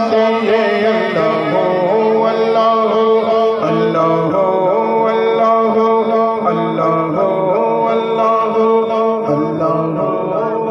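A man singing a naat, a devotional poem in praise of the Prophet Muhammad, into a microphone in a slow, continuous melody.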